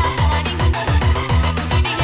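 Loud electronic DJ-remix dance music with a fast, steady beat of heavy, falling bass notes and a higher melody line over it.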